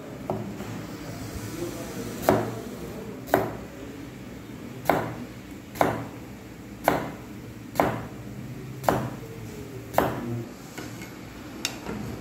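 Chef's knife slicing a peeled white vegetable into rounds, the blade knocking on a plastic cutting board about once a second, roughly ten chops.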